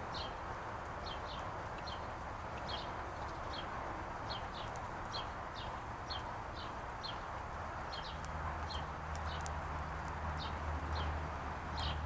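A small songbird chirping over and over, short high chirps about twice a second, over a steady background hiss. A low steady drone joins about two-thirds of the way through.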